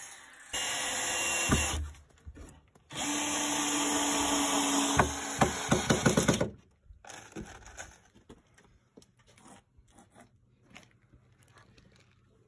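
Cordless drill-driver driving screws into pallet wood in two runs, the second ending in a quick series of sharp clicks. Afterwards only light knocks as the boards are handled.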